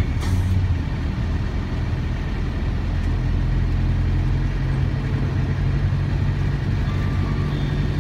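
Isuzu Panther 2.3 diesel engine running at low speed in slow traffic, heard from inside the cabin as a steady low rumble.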